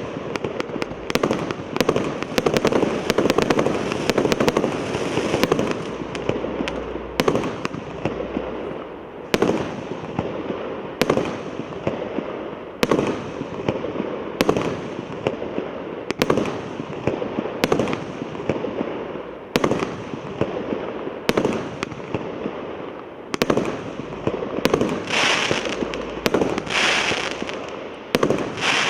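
Consumer fireworks battery (multi-shot cake) firing: sharp bangs about once a second over a constant crackle, with a dense run of quick shots in the first few seconds. Near the end, bursts of hissing join the bangs.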